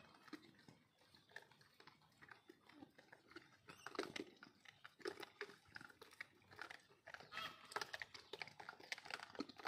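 Faint crunching and clicking of a troop of gray langurs eating.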